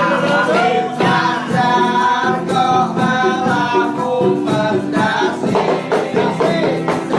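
Music with singing voices, steady throughout.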